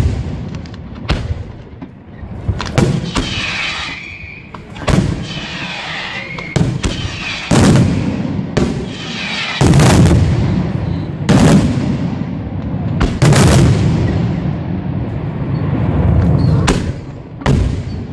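Aerial firework shells bursting in quick succession, a sharp bang about every second, each trailing off in a low echoing rumble.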